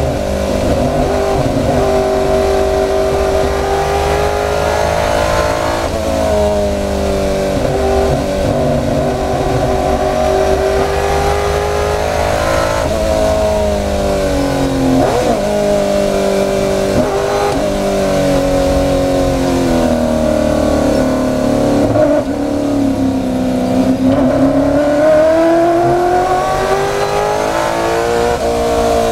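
Ford Mustang race car's V8 engine at race pace, heard onboard. Its pitch climbs through the gears, drops away under braking for corners, and jumps sharply on the downshifts.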